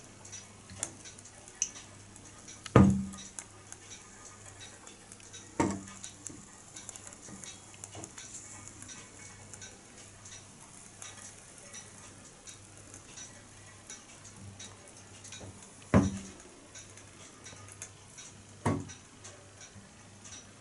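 Kenneth Wells-design pop-pop boat running on a spirit burner, giving only faint quick ticking. Four louder knocks, about three, six, sixteen and nineteen seconds in, come from its wooden hull bumping the side of the tank.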